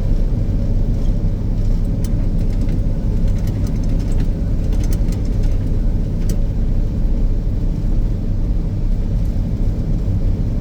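Snowcat groomer's diesel engine running steadily, heard inside the cab as a constant low drone, with a few faint clicks or rattles.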